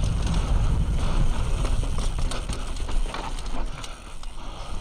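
Mountain bike rolling fast down a dry dirt trail: tyre rumble and wind buffeting on the helmet or bike-mounted action camera, with quick rattles and clicks from the bike over bumps. It eases off briefly about four seconds in.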